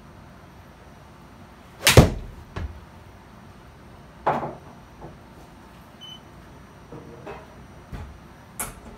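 A 6-iron striking a golf ball off a hitting mat about two seconds in, a single loud crack, with a smaller knock just after as the ball hits the simulator screen. A second strong knock with a short ringing tail follows a couple of seconds later, then a few faint clicks and knocks.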